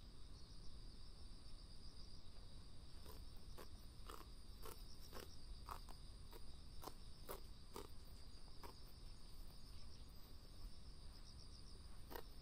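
Insects chirping steadily in a high, pulsing band, with short, irregular snaps of a sika deer tearing off grass as it grazes, one or two a second.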